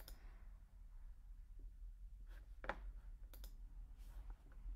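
A few soft computer mouse clicks, the clearest about two and a half seconds in, over a low steady hum.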